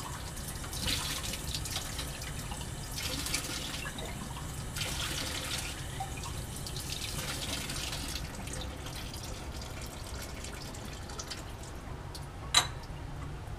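Water running from a lab sink faucet and splashing through a glass graduated cylinder as it is rinsed out, the flow softer in the later part. A single sharp clack about a second before the end, as the tap handle is worked.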